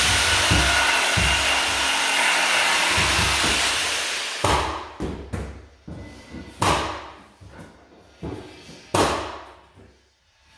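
A cordless power tool runs steadily for about four seconds as it cuts wood flooring, then stops. A handful of sharp, separate knocks follow.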